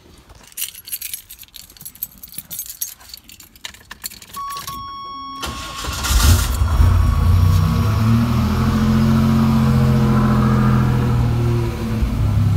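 Keys jangling and clicking, a brief steady tone about four and a half seconds in, then the 1987 Buick Grand National's turbocharged 3.8-litre V6 starts about five and a half seconds in. It settles into a steady idle through a new 3-inch Pypes exhaust with Dynomax Super Turbo mufflers.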